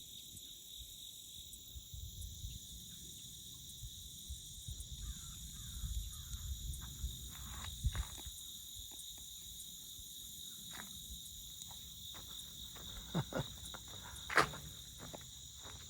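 Steady chorus of insects, a continuous high trill, over a low rumble, with scattered short knocks and clicks, the loudest about fourteen seconds in.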